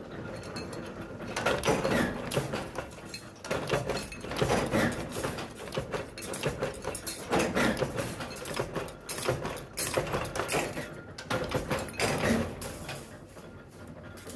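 Flywheel-driven mechanical power press running and stamping stainless steel spoon blanks, with sharp metal clanks every couple of seconds and the clatter of loose steel blanks being handled.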